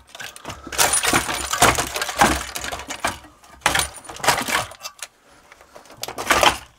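Rattling, scraping and clinking of hard parts as a circuit board is tugged and worked loose inside a solar inverter's enclosure, in three bursts of clatter.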